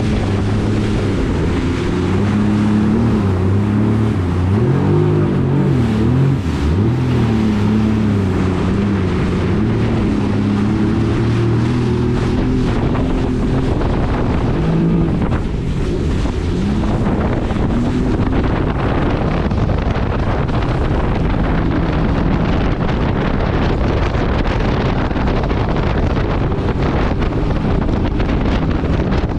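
Yamaha EX Sport WaveRunner's 1049 cc three-cylinder four-stroke TR-1 engine running under way, its pitch rising and falling with the throttle through the first half, then mostly buried under heavy wind on the microphone and rushing water.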